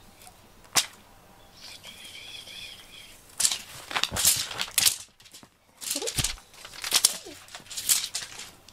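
A cat dashing and pouncing after a feather teaser toy: two flurries of scrabbling paws, thumps and rustling, the first about three and a half seconds in and the second about six seconds in.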